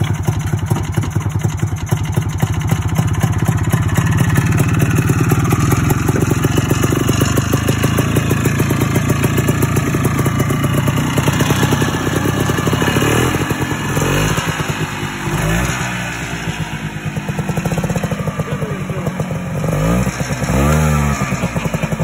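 1987 Ski-Doo Citation 250 snowmobile's small single-cylinder two-stroke engine running on a makeshift fuel supply from a bottle. It runs steadily, then dips and picks up with a few brief revs in the second half.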